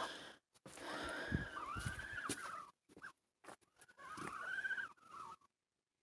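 Domestic geese calling in two short bouts of drawn-out, rising-and-falling calls, the first about a second in and the second around four seconds in. The calls stop abruptly shortly before the end.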